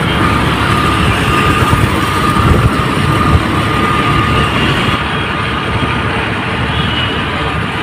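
Steady road noise of a two-wheeler ride at speed: wind rushing over the microphone with the engine and tyres running underneath.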